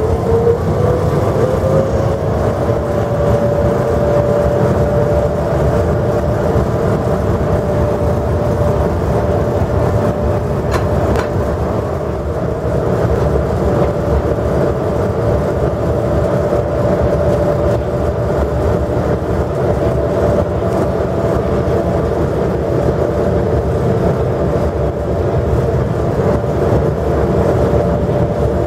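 Cab noise of a DB Class 103 electric express locomotive running at speed: a steady, loud rumble with a whine that rises in pitch over the first couple of seconds and then holds level.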